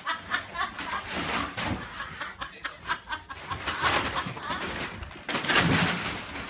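A woman laughing hard in quick, repeated bursts.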